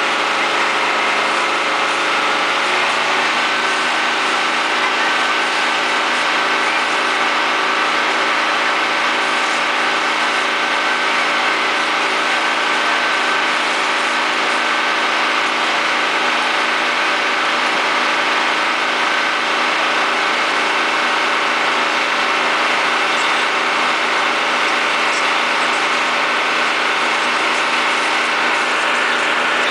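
Engine driving a fire pump, running steadily under load while it feeds the hose lines, with the hiss of the water jets beneath. Its pitch shifts slightly a few seconds in and then holds steady.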